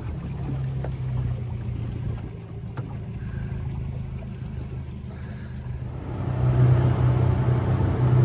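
Jet-drive outboard boat motor running steadily as the boat runs upriver, its note growing louder about six seconds in.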